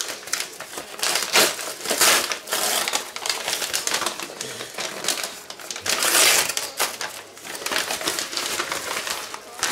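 Paper padded mailer envelope crinkling and rustling in irregular bursts as it is pulled open by hand, with the wrapped package inside being handled.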